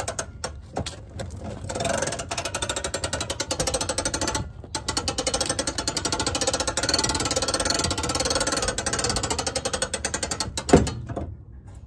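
Hand crank turning the roof-lift gearbox of a 2006 Jayco Jay Flight 1207 pop-up camper, making a rapid mechanical clicking with a short break about four and a half seconds in. Near the end comes one loud pop, the gears catching back up partway through the lift cycle, which is normal for this lift.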